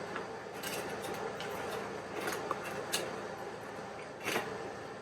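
Cutlery clinking and scraping against a plate while eating pancit canton: a handful of separate sharp clicks, the loudest near the end, over a steady low hum.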